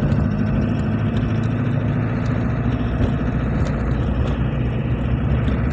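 Car engine running and tyres rolling over a dirt road, heard from inside the cabin as a steady low drone, with a few light ticks and knocks from the bumpy surface.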